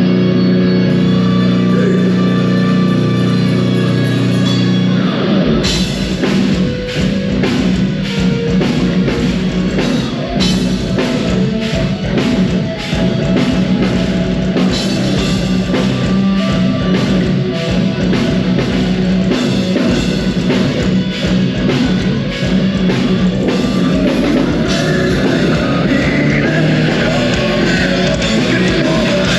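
Heavy metal band playing live: distorted electric guitars hold sustained chords, then about five seconds in the full drum kit comes in and the band drives on with a pounding beat.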